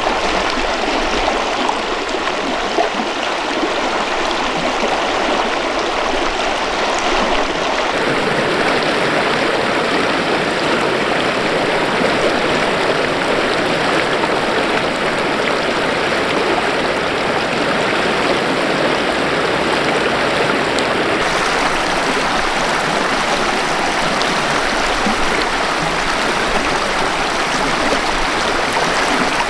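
Snowy mountain river flowing, a steady rushing of water; its tone shifts slightly about eight seconds in and again about twenty-one seconds in.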